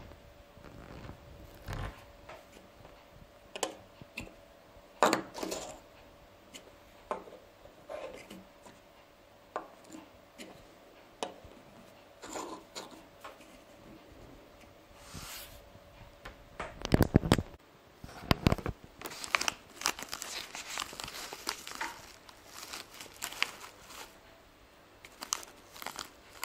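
Handling noise: scattered clicks and knocks as small plastic safety lights are handled and pressed, then a busier stretch of rustling and crinkling of life-vest fabric, from about seventeen seconds in, as a light is fitted to its mount.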